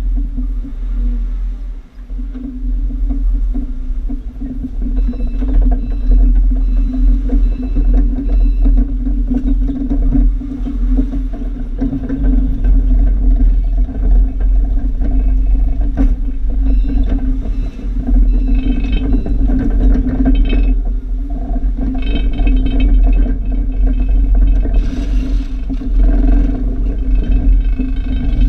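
Forklift running and driving, a steady low drone close up, with rattles and knocks from the fork the camera rides on. A thin higher whine comes and goes in the second half.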